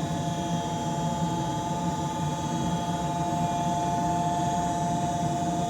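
York Affinity 9C series condensing gas furnace running with its cabinet open: a steady low motor rush with two steady high whining tones over it.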